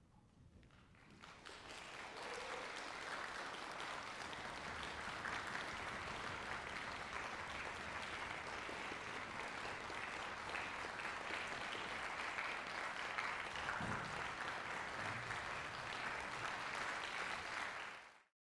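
Concert audience applauding, building over the first two seconds and then holding steady until it cuts off abruptly near the end.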